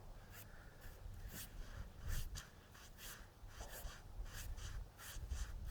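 Faint, irregular scratching and rustling, a string of short strokes over a low rumble.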